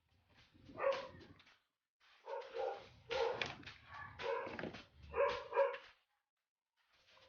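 A dog barking in a string of short barks, several in a row across a few seconds.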